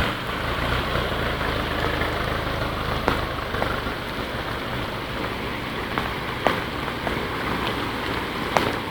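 Heavy rain pouring down in a steady hiss, over a steady low rumble, with a few sharp clicks of drops striking close by.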